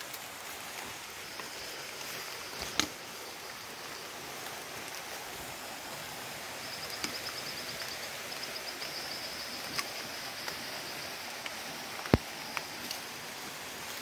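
Rainforest ambience: a steady hiss with a rapid, high-pitched pulsing trill that comes and goes, strongest in the middle, and a few sharp clicks, the loudest about twelve seconds in.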